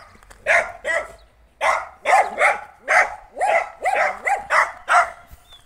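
A dog barking over and over: about a dozen short barks, some in quick pairs.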